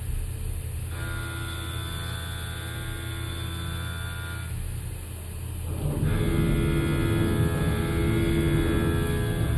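Background music: sustained synth chords over a low bass drone, changing chord every few seconds and growing fuller and louder about six seconds in.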